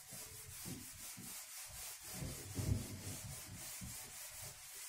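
Whiteboard being wiped clean by hand: faint, quick back-and-forth rubbing strokes across the board's surface.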